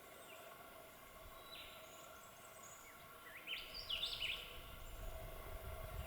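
Quiet bush ambience: a bird gives a short call about a second and a half in, then sings a quick run of stepped, chirpy notes a little past the middle. Faint steady background tones run underneath, and a low rumble comes in during the second half.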